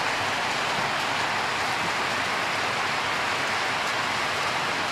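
Heavy rain with small hail pelting down on and around a corrugated metal shelter roof: a steady, dense hiss that holds at one level.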